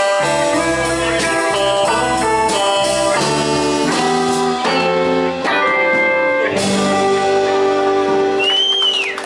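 Live country-rock band playing, with electric guitars picking out notes over bass guitar. The bass drops out a little past halfway, and a short high whistling glide rises and falls near the end.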